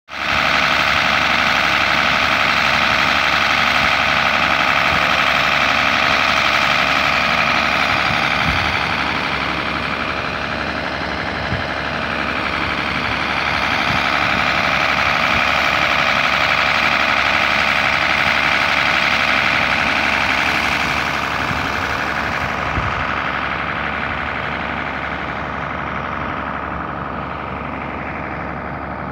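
Stationary engine driving a river water pump, running steadily at constant speed. It grows fainter over the last third.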